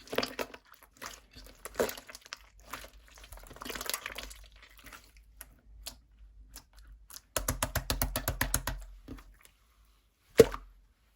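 Slime being squeezed and poked by hand, making sticky crackling clicks and pops. A quick run of clicks comes a little past the middle, and a single sharp snap near the end.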